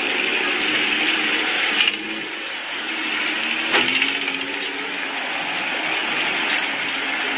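Engine and exhaust of a Lamborghini Aventador replica running steadily as the car rolls slowly, with two short sharp clicks about two and four seconds in.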